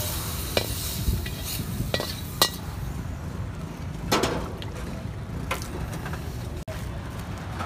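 Metal spatula clinking and scraping against a hot wok as stir-fried food is tipped out: a few sharp clinks in the first two and a half seconds and a longer scrape about four seconds in, over a steady low rumble. The wok's sizzle fades out right at the start.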